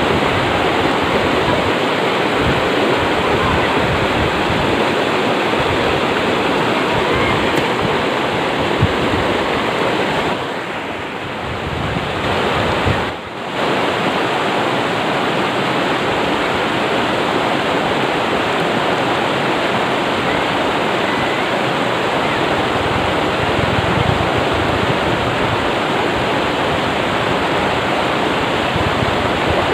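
Shallow rocky river rushing over boulders in white-water rapids: a steady, loud rush of water that dips briefly about ten seconds in.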